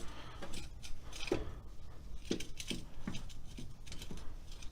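Light metallic clicks and taps as lug nuts are worked onto the wheel studs by hand, about eight to ten short knocks spread unevenly.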